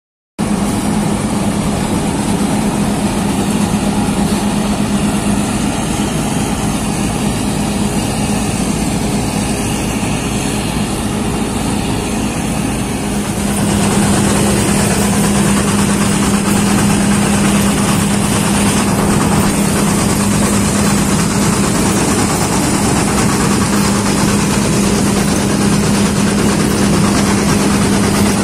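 New Holland wheat combine harvester running steadily while cutting alfalfa, heard from the operator's position: a constant low engine hum under a noisy machinery wash. It starts abruptly at the very beginning and grows a little louder and hissier about halfway through.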